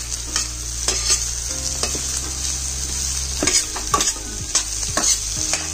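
Vegetables stir-frying in hot oil in a wok: a steady sizzle broken by irregular scrapes and knocks of the spatula against the pan, over a low hum.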